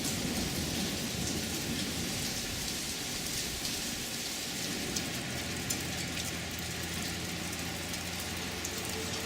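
Steady rain falling, with individual drops ticking on surfaces. A low rumble of thunder dies away in the first couple of seconds.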